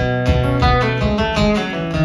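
Acoustic guitar playing an instrumental break, notes picked one after another over low bass notes, with no singing.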